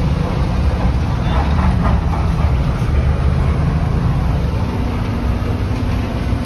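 Scania tipper truck's diesel engine running under load with a steady low drone, heard from inside the cab as the loaded truck pulls away up the quarry haul road.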